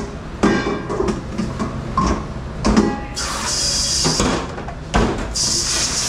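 Dishes and utensils clattering and knocking in a dish room, with a hiss that comes in about three seconds in and again near the end.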